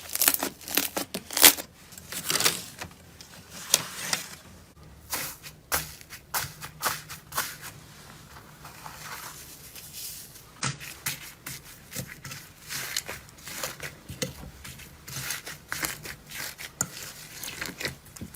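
Slime being squeezed and pressed by hand, giving irregular crackling and popping clicks with soft squelching between them.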